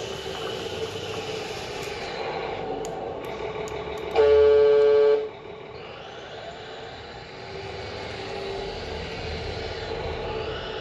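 Sound module in a 1/32 Volvo truck model playing a simulated truck engine running steadily. About four seconds in, a few clicks are followed by a loud air-horn blast from the module lasting about a second.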